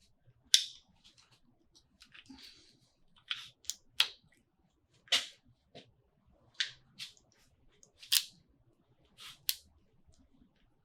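Small parts being handled and fitted by hand: about a dozen irregular sharp clicks and light knocks, with faint rustling between them.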